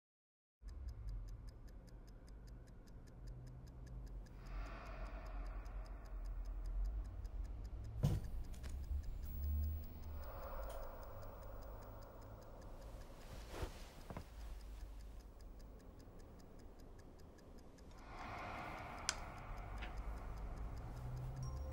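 A clock ticking steadily over a low hum, with three passing swells of soft noise and a couple of sharp knocks.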